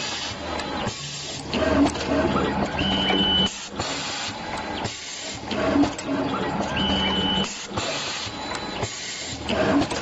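Fully automatic tubular-connector crimping machine cycling, repeating about every four seconds: a steady motor hum, clicks and knocks from the feed and crimping strokes, and once per cycle a short high steady tone.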